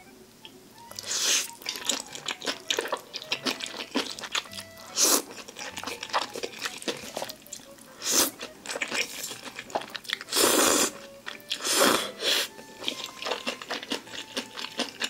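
Close-up eating of jjajang ramen noodles wrapped in napa cabbage kimchi: several long slurps of the noodles and wet, crunchy chewing of the kimchi, with many small clicks and smacks between them.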